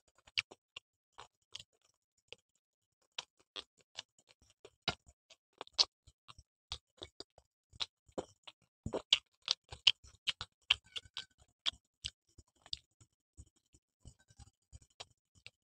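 Eating sounds of pizza being bitten and chewed: irregular sharp crunches, clicks and mouth smacks, a few each second.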